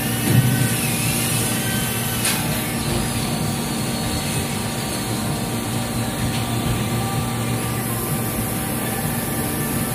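Steady drone of running injection molding machinery, with a short knock about half a second in and a sharp click about two seconds in.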